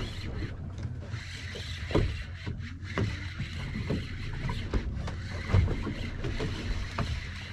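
Wind on the microphone and water against a small boat's hull, with a few short knocks.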